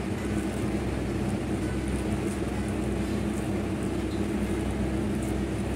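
A steady low mechanical hum with several even tones, running unchanged throughout.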